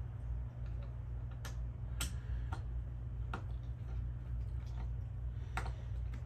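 A few sharp, irregularly spaced clicks and ticks from a screw being worked out of a new upright vacuum's parts, over a steady low hum.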